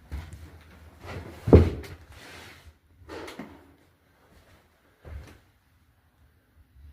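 Knocks and bumps from handling: one loud thump about a second and a half in, then two softer knocks.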